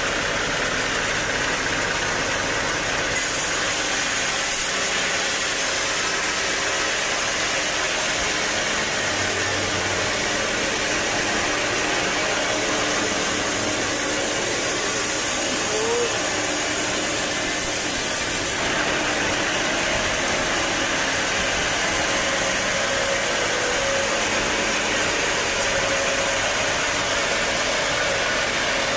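Sawmill running steadily while sawing a teak log: a continuous, loud machine drone with a heavy hiss.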